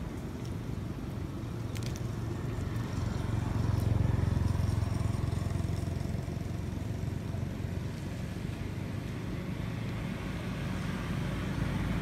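A low engine rumble from a motor vehicle, growing louder about four seconds in and then easing off.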